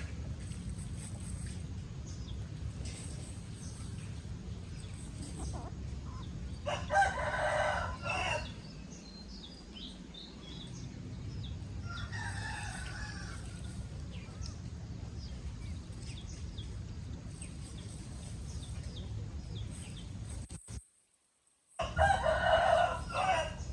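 Rooster crowing, about seven seconds in and again near the end, with a fainter call in between and short chicken calls scattered throughout, over a steady low rumble.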